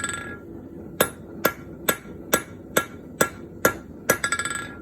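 Blacksmith's hand hammer striking a hot bronze bar on an anvil, steady blows about two a second, drawing out the leaf's stem. Near the start and again near the end the hammer gives a quick run of light, ringing taps.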